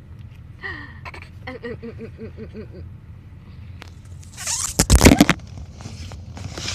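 Infant giggling in a run of short, rhythmic laughs, about four a second. About four seconds in, a loud rubbing and rustling as the recording device is handled against its microphone.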